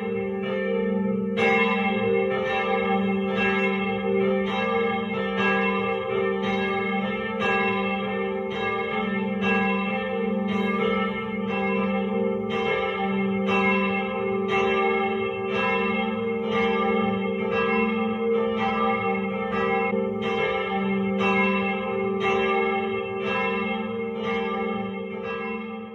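Church bells pealing: an even run of strokes, about three every two seconds, over the sustained hum of the bells ringing on.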